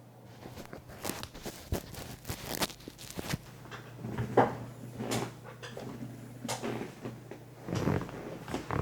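Typing on a Tester68 mechanical keyboard with AliExpress Holy Panda clone tactile switches and XDA-profile keycaps, stock and factory-lubed. The keystrokes click in an irregular run of several per second.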